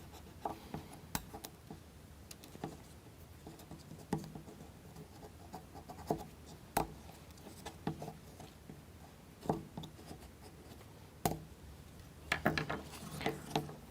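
Light, irregular clicks, taps and scratching of plywood model-kit parts being handled and trimmed, the leftover bits of a wheel being cut away, with a quick run of clicks near the end.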